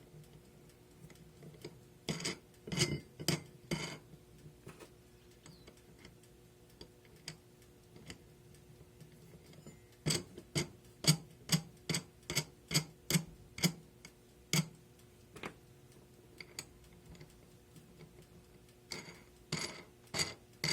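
Sharp metallic clicks and taps from the metal mold holder being handled and screwed down over the rubber mold: a short cluster, then a regular run of about two clicks a second, then a few more near the end. A faint steady hum lies underneath.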